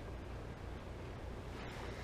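Faint, steady low rumble of wind on the microphone, with a light hiss over it.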